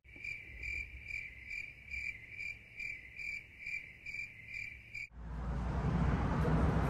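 Cricket chirping in an even rhythm, about two to three chirps a second, starting and stopping abruptly like a dropped-in 'crickets' sound effect. About five seconds in it cuts off and a steady outdoor rushing noise, heavy in the lows, takes over.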